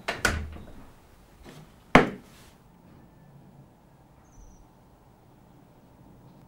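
Plastic latches of a Stanley outdoor cooler clicking open, with a couple of clicks just after the start and one sharp snap about two seconds in as the lid comes up.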